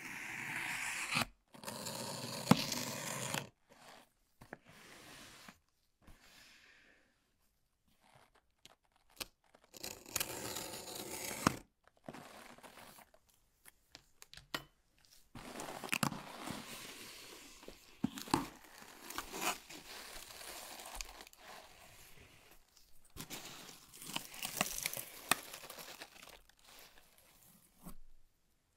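A cardboard shipping box being opened: a knife slitting the packing tape, the tape tearing and the cardboard flaps rustling and scraping. The sounds come in several bursts with short quiet pauses between them.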